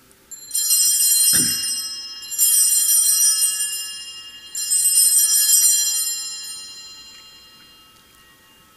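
Altar bells rung three times at the elevation of the consecrated host at Mass. Each stroke is a bright cluster of high ringing that fades slowly.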